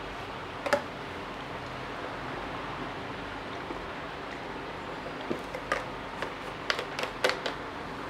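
Small clicks and knocks of a plastic water bottle being handled: one sharp click about a second in, then a run of clicks in the last few seconds as the bottle is lowered and its cap handled, over a steady low room hiss.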